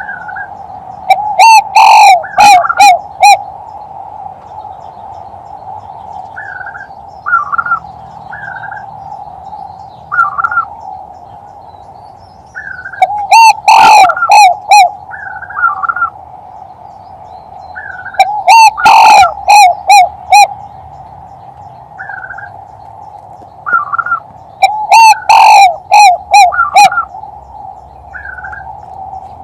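Male spotted dove (tekukur) giving its 'kuk 3' cooing phrase, a loud run of several notes repeated four times about every five to six seconds. Under it runs a steady background hum, with faint short chirps between the phrases.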